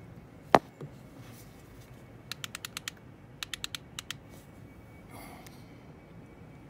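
Small hard clicks: one sharp knock about half a second in, then two quick runs of about six light clicks each, near the middle.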